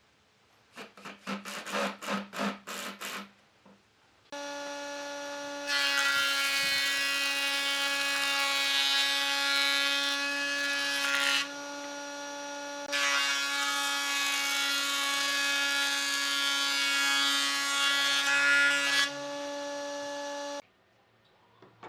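Electric power tool motor: a few quick on-off bursts, then it runs at a steady high pitch for about sixteen seconds. Twice it turns louder and rougher for several seconds before settling back, and it stops near the end.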